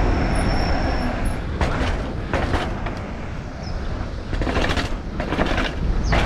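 Mountain bike riding fast down a rough trail: wind rushing over the microphone and tyres rumbling, broken by about five short clattering knocks from the bike over bumps, the loudest near the end.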